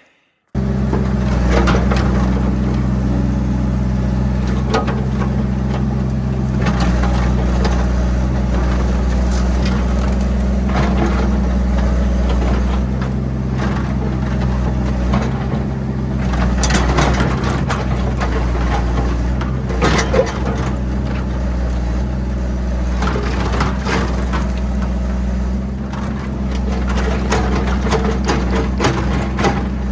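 Excavator's diesel engine running steadily under load, with irregular cracking, knocking and scraping as brush and debris are pushed and crushed.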